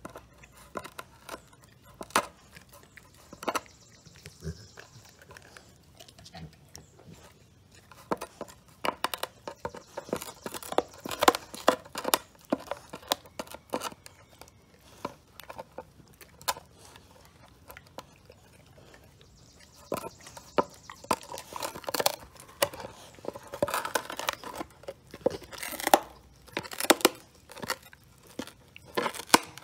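Rottweiler gnawing a giant scapula bone: irregular crunching, scraping and tearing of teeth on bone, in flurries with a quieter spell midway.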